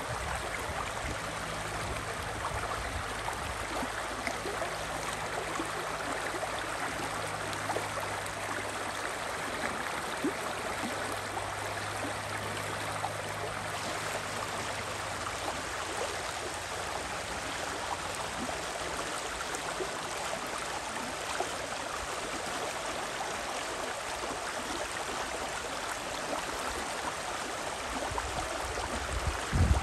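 The River Spree rushing, a steady even noise of flowing water. A faint low hum sits under it through the first half, and a low thump comes near the end.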